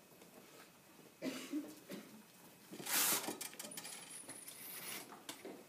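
Cloth rustling and handling noise as a hospital gown and blanket on a patient manikin are moved, with one louder rustle about three seconds in.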